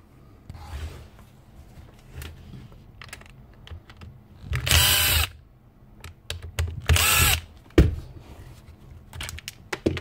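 Power screwdriver whirring in two short runs, about four and a half and seven seconds in, its whine rising and falling, as it backs out the screws of a Ryobi router's motor end cap. Between the runs there are light clicks and knocks of plastic parts being handled.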